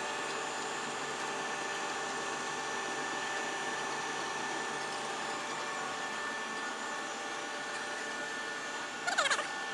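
Toshiba TD 60/85 CNC vertical turning and boring mill running: a steady mechanical hum with several whining tones. Near the end comes a brief, louder squeal that wavers in pitch.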